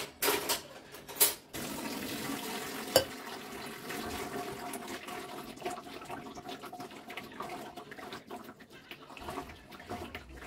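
Water pouring and trickling through a steel sieve into a large aluminium tin as ground soaked wheat is washed by hand to rinse its starchy milk out of the bran pulp. A few metal knocks come in the first second or so, with one sharp clink about three seconds in, then a steady rush of water.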